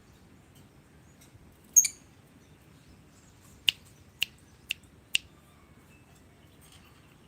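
Lovebird calling in short shrill bursts: one loud squawk about two seconds in, then four short sharp chirps about half a second apart.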